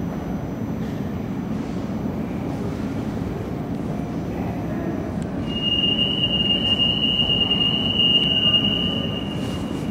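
Alstom NS-16 rubber-tyred metro train standing at a station platform with a steady hum from its running equipment. About halfway through, a steady high-pitched tone sounds for about three seconds, then stops.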